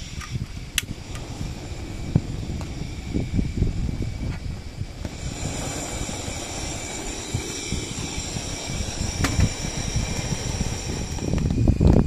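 Portable butane canister stove being lit: a sharp click about a second in, then from about five seconds in the steady hiss of the gas burning at the burner. Under it runs a low rumble of wind.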